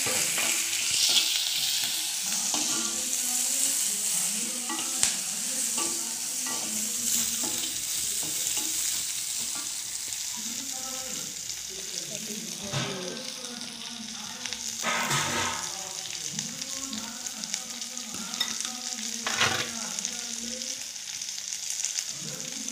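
Sliced onions, dried red chillies and curry leaves sizzling in hot oil in a clay kadai, stirred with a metal ladle that scrapes the pot now and then, with a few louder strokes in the second half.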